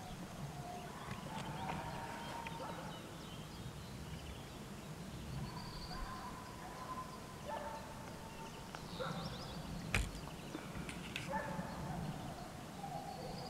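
Distant animal calls: several drawn-out cries of about a second each, with birds chirping and a single sharp knock about ten seconds in.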